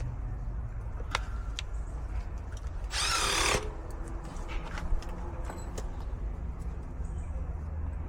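A brief harsh burst of noise, about half a second long, about three seconds in, amid a few sharp clicks of tools being handled on an air-conditioning unit, over a steady low hum.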